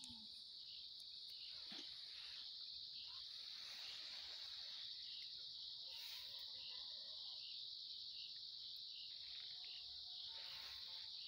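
Night insects, crickets, trilling in a steady, faint, high-pitched chorus.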